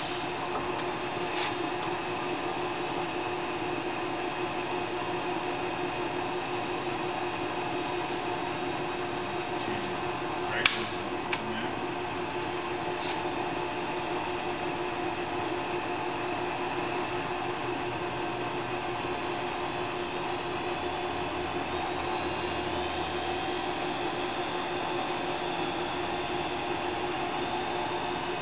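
Hardinge HLV toolroom lathe running under power, its 1.5 hp three-phase motor and spindle drive giving a steady, layered whine, with the carriage power feed engaged. A sharp click about ten seconds in, and the whine shifts higher and a little louder in the last few seconds.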